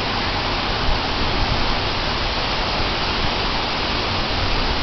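Heavy downpour: a steady, even hiss of rain with a low rumble underneath.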